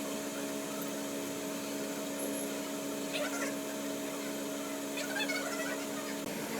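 Steady hum of a hot-air rework station's blower as it heats a phone's audio IC to desolder it from the board. A cat meows faintly twice, about three and five seconds in.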